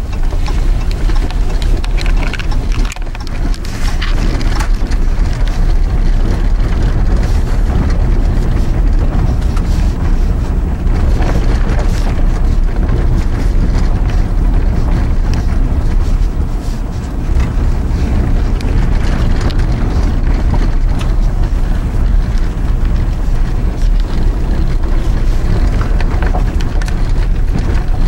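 Steady road noise of a vehicle driving along an unplowed, snow-covered forest road, heard inside the cabin: a loud low rumble of tyres and drivetrain with brief small dips in loudness around three and seventeen seconds in.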